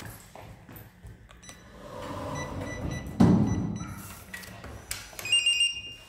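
Electronic beeping tones, higher and brighter near the end, with one loud thump about three seconds in.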